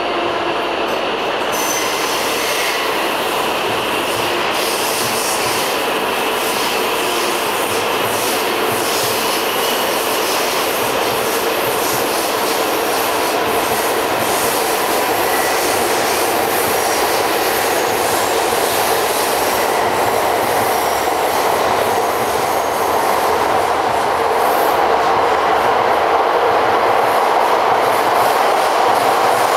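Coupled E5 Hayabusa and E6 Komachi Shinkansen train pulling out of the platform and gathering speed past the listener. It makes a continuous rushing of wheels and running gear, with scattered light clicks, and grows a little louder near the end as the E6 cars go by.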